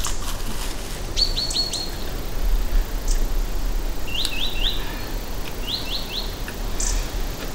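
A bird chirping in three quick runs of three or four short, high, downward-sliding notes.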